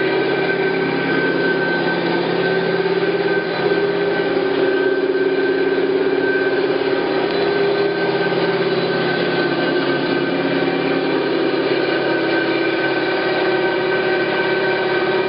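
Hyd-Mech V-18 vertical bandsaw running steadily, a constant machine hum and whine that holds an even pitch.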